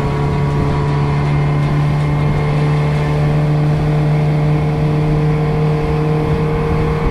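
A 140-horsepower outboard motor running at speed, a steady drone that climbs slightly in pitch, over the rush of the boat's wake.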